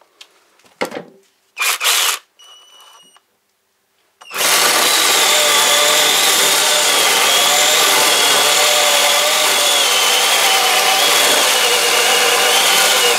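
Cordless mini chainsaw starting about four seconds in, after a couple of brief knocks, then running steadily with a motor whine as its chain cuts through a frozen, green walnut branch.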